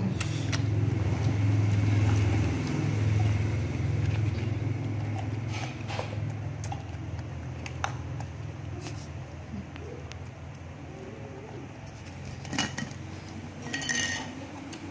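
Scattered clinks and knocks of a ceramic bowl and plastic bottle parts being handled, with a small cluster near the end, over a low steady hum that is loudest for the first few seconds and then fades.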